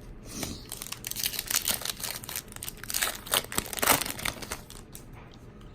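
Crinkling of a foil trading-card pack wrapper being handled and torn, a dense crackle that is loudest in the middle and eases off near the end.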